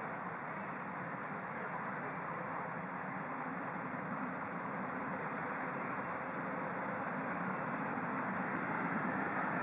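Miniature steam train of a park railway approaching, a steady rumble that grows slowly louder as it nears. A few brief high chirps come about two seconds in.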